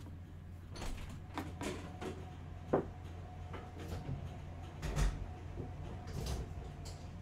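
Scattered clicks and knocks of things being handled, with a sharp click near the middle and a heavier thump about five seconds in, over a low steady hum.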